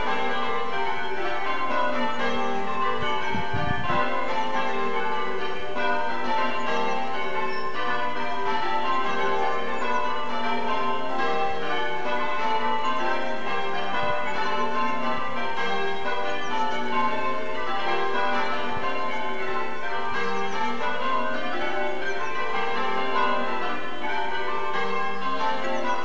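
A light ring of twelve church bells (tenor 9 cwt) change ringing maximus, the bells striking one after another in a rapid, even, unbroken stream. A brief low rumble comes about three and a half seconds in.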